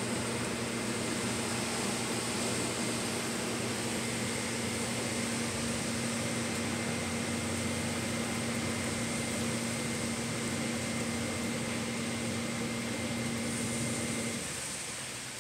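A steady mechanical hum with a low droning tone and a faint high whine over a hiss. The hum stops about a second before the end, leaving a softer hiss.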